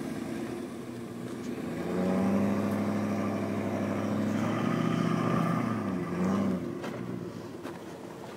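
Jeep Grand Cherokee WJ engine revving hard under load as the SUV climbs a steep dirt slope. The note rises about two seconds in, holds steady for several seconds, then dips and drops away near the end.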